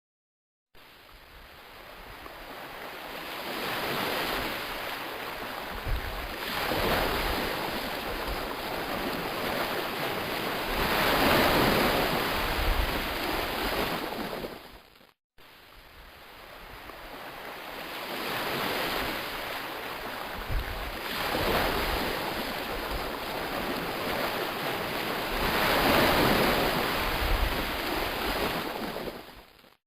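Ocean waves washing ashore, a rushing noise that swells and ebbs every few seconds. The same stretch of surf plays twice in a loop, with a brief gap about fifteen seconds in.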